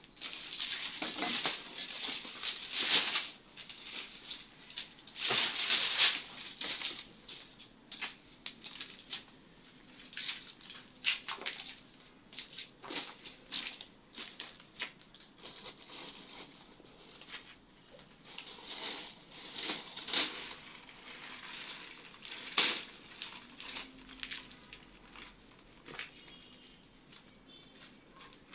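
Broken concrete rubble and debris being shifted by hand and trodden on, an irregular run of scraping, crunching and clattering, loudest in the first six seconds.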